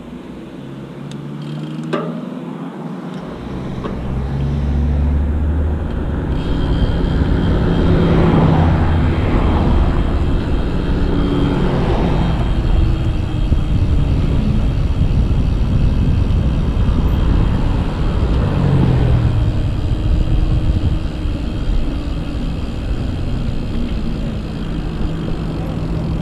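Wind rushing over the microphone of a bike-mounted camera as a mountain bike rolls down a paved road, building over the first few seconds, with tyre noise and a few cars swelling past and fading.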